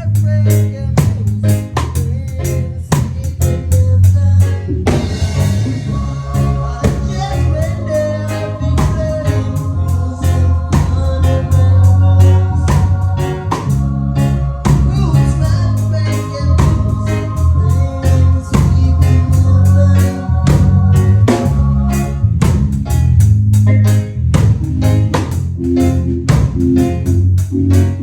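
A live band playing loudly: a drum kit keeps a steady beat over a heavy bass line, with held notes sounding above from about six seconds in.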